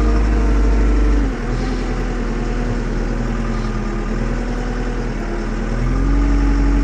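Farm tractor's diesel engine running steadily, dropping in revs about a second in and picking up again near the end.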